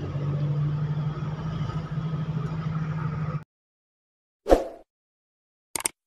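A vehicle engine runs with a steady hum, then cuts off abruptly a little past halfway. After a moment of dead silence come a short sharp hit and then a quick double click.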